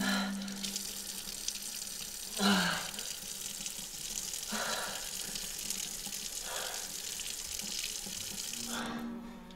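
Kitchen faucet running steadily into the sink while a man drinks from the stream, taking loud breaths about every two seconds. The running water stops near the end.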